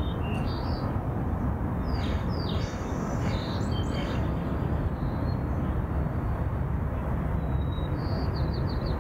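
Steady low outdoor rumble with birds chirping on and off above it, ending in a quick run of chirps near the end.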